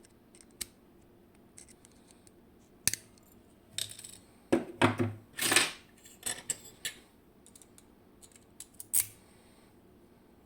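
Small metal clicks and scrapes from a Vachette V DIS+ dimple lock cylinder being taken apart with hand tools. There are scattered clicks, with a run of louder scraping about halfway through.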